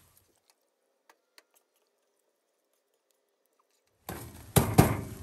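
Near silence for about four seconds, then the sound of a wire strainer scooping fried garlic out of hot oil in a wok comes in suddenly, with two sharp knocks of metal against the pan close together.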